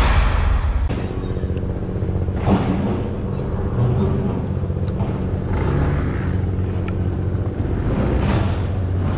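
Honda ADV160 scooter's single-cylinder engine running low and steady at walking pace, with a few knocks as its wheels roll up a ferry's steel loading ramp.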